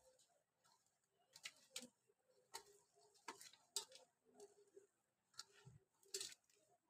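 Faint irregular crunching and rustling of sliced onions being squeezed and tossed by hand with flour and spices in a steel plate, with light clicks against the plate a second or so apart.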